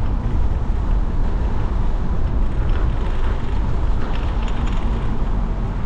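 Steady low rumble of a car heard from inside the cabin while driving, tyre and engine noise with no sudden events.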